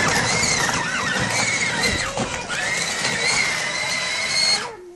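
Battery-powered children's ride-on jeep driving, its electric drive motors and plastic gearbox whining steadily with the pitch wavering a little. The whine cuts off near the end.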